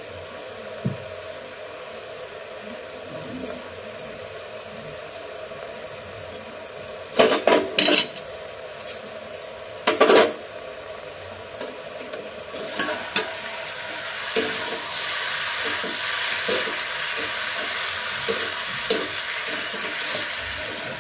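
Gas burner running steadily on full flame under a covered iron kadhai. A steel plate lid and spatula clank against the pan three times around seven to eight seconds in and again at ten seconds. From about twelve seconds, diced vegetables sizzle and fry in the uncovered pan while being stirred, with scraping clicks of the spatula.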